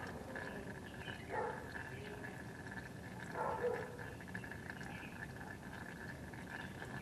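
Two short, faint animal calls, one about a second in and another about two seconds later, over a faint steady high-pitched hum.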